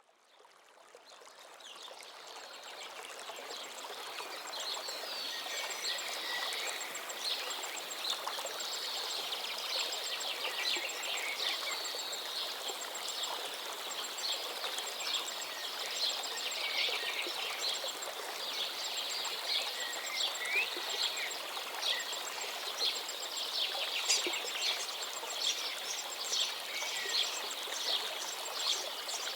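Many small birds chirping and twittering over a steady rush of running water. The sound fades in from silence over the first few seconds.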